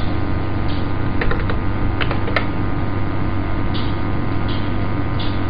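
Steady electrical hum and background noise from the recording, with a few single computer-keyboard key presses clicking through it, spread over the first half.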